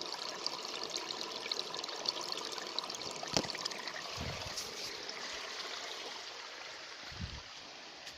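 Water trickling and splashing steadily, like a small stream. There is a sharp click about three seconds in and two low bumps later on, and the water sound grows fainter near the end.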